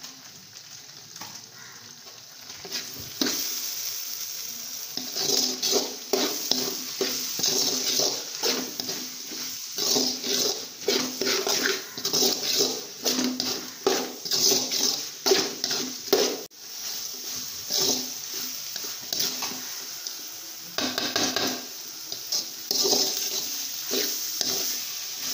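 A slotted metal ladle scraping and stirring thick onion-tomato masala around a metal pot, in quick irregular strokes that start about three seconds in. The masala fries with a sizzle underneath.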